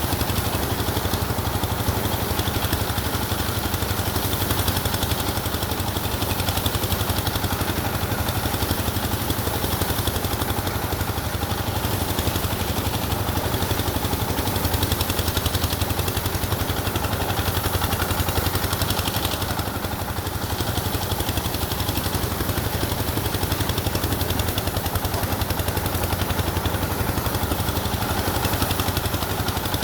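An engine running steadily at a constant speed, with a fast, even pulsing and a low hum.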